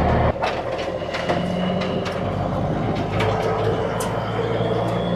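A vehicle's engine running steadily as it drives along, with short clicks and rattles over it.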